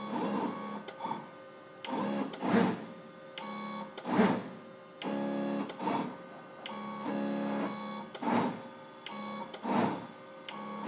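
CNC router's stepper motors driving the axes through a G-code program: a whining hum that stops and starts every second or two, with short rising and falling sweeps between the moves.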